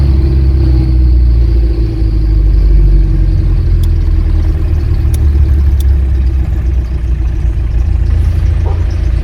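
Car driving along a street: a steady low engine and road rumble, with a few faint clicks.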